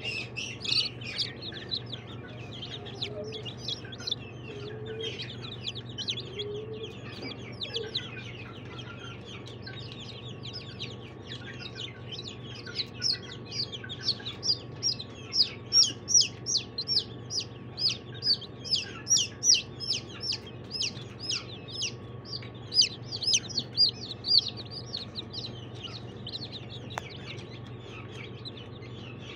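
Newly hatched chicks peeping: short, high, falling peeps in quick succession. The peeps grow louder and more regular, about two a second, from about halfway through, over a low steady hum.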